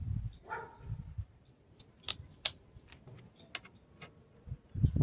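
A few light clicks and taps, then near the end a Hercules cordless impact driver starts up with a loud low rumble.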